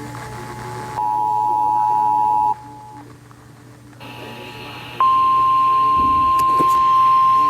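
Emergency Alert System attention tones: a two-note tone, the 853 and 960 Hz pair, sounds for about a second and a half, then after a short gap a single steady tone, the 1050 Hz weather-radio warning tone, starts about five seconds in and holds, under a low hum.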